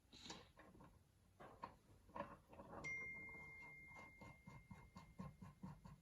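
Faint clicks and knocks of hydraulic cylinder parts and seals being handled and fitted together. About halfway through comes a faint steady high tone lasting about two seconds, and then a run of quick, even ticks.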